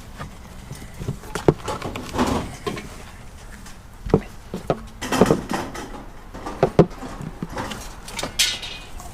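Scrap metal being handled and set down: irregular clanks and knocks, several louder ones about five and nearly seven seconds in.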